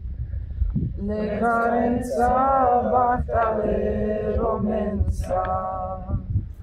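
A group of men and women singing together unaccompanied: a slow melody of long held notes in phrases, with short breaks between them.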